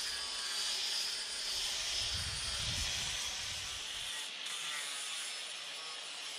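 Power sander running against log walls: a steady hiss of abrasive on wood over a faint motor whine. A low rumble underneath drops out about four seconds in.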